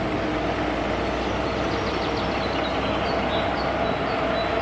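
Diesel engine of a heavy eight-wheel Tatra dump truck running steadily as the truck drives along.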